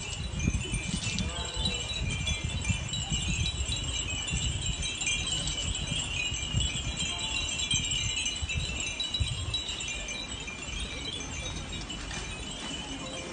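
Many Japanese glass furin wind chimes ringing together in the breeze, a dense, continuous tinkling of overlapping high bell tones. A low, gusty rumble runs underneath.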